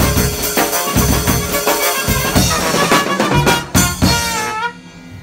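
Trumpet and trombone playing a tune over a drum kit with steady drum hits. The band ends on a held brass note that stops about four and a half seconds in.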